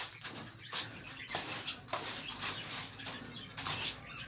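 Dry seed mix of millet, sunflower seeds and oats rustling and hissing as it is worked over by hand, in irregular strokes about twice a second.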